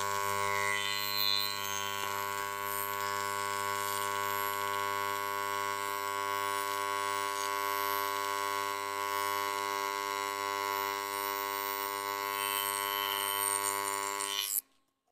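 AC TIG welding arc on aluminium sheet, a steady, even-pitched buzz that cuts off abruptly near the end as the arc is broken.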